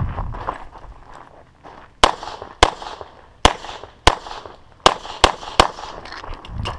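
Handgun shots fired close to the microphone: seven sharp shots starting about two seconds in, mostly in quick pairs about half a second apart, each with a short echo.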